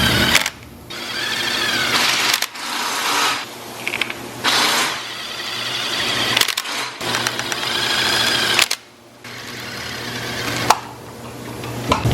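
Power wrench running in the bolts that hold a transmission's bell housing, in about six short bursts. Each burst is a whine that rises and falls, with brief pauses between bolts.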